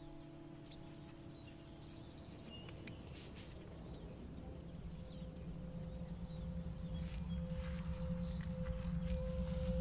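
Outdoor ambience with a steady high insect drone and a few faint bird chirps. Beneath it, a low sustained musical drone from the film score swells steadily louder, and a higher held note joins about halfway through.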